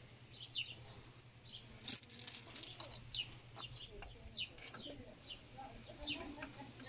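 Small birds chirping over and over in short, quick, falling chirps, with a few light metallic clinks of hand tools about two seconds in.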